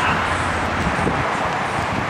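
Steady street traffic noise, an even rushing hum with no distinct events.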